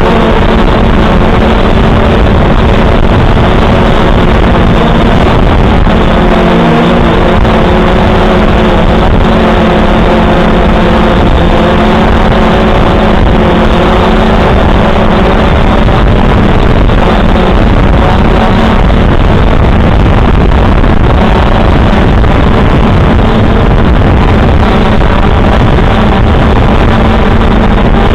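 Quadcopter drone's electric motors and propellers buzzing steadily, very loud and close as picked up by the drone's own onboard camera microphone, with the pitch wavering briefly about six to seven seconds in.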